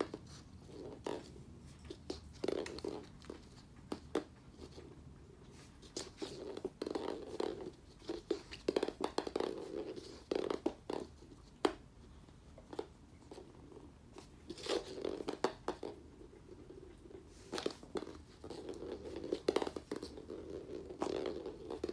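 Kittens playing with a toy ball on a wood-laminate floor: irregular light taps, clicks and scuffs from paws and the ball on the floor.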